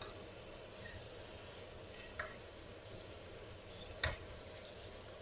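Mushrooms and bell peppers cooking in a pan with a steady low hiss, and a wooden spatula knocking against the pan twice, lightly about two seconds in and more sharply about four seconds in.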